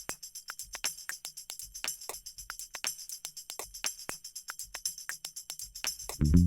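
Background music: a fast, even rhythm of jingling, tambourine-like percussion, with a deeper instrument coming in right at the end.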